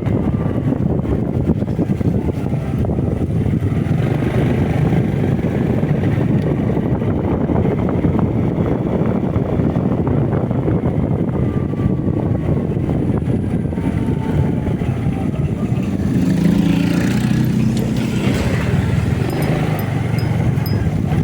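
Motorcycle being ridden, with a steady engine and wind rumble. About sixteen seconds in, a louder pitched engine note comes in for a few seconds.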